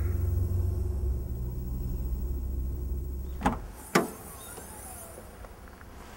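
Steady low road rumble inside a moving car, which cuts off about three and a half seconds in. Two sharp clacks follow half a second apart as a car's trunk lid is unlatched and swung open.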